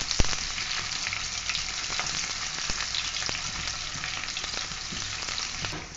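Sliced onions frying in hot oil in a pan: a steady sizzle with scattered small pops, as they are stirred with a slotted spatula that knocks once against the pan just after the start. The onions are being fried until brown.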